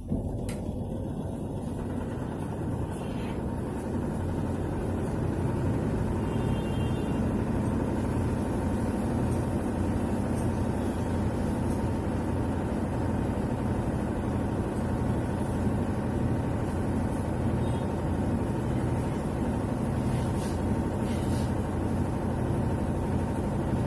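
Whirlpool White Magic Pro XL 800 washing machine on its spin cycle, the drum and motor running with a steady hum that builds over the first few seconds and then holds even. The knocking noise it had before is no longer heard, which the owner takes as the fault being solved.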